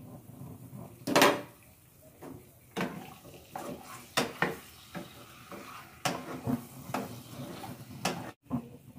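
A spatula scraping and knocking against a nonstick karahi as chicken pieces are stirred, about one knock a second, with one loud clatter about a second in. A faint sizzle of chicken frying in oil runs underneath.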